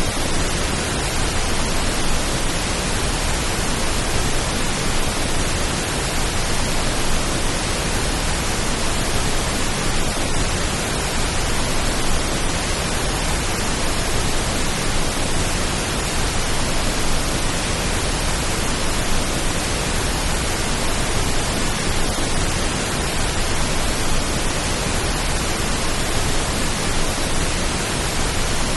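Steady pink noise: an even, unbroken hiss that does not change, made as a rain-like calming sound.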